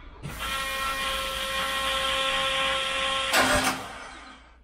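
A steady electric whine from the starting system of the Saab B204 engine, lasting about three seconds, as the engine is tried for its first start and does not catch, typical of a flooded engine. It ends in a short, louder rush of noise before dying away.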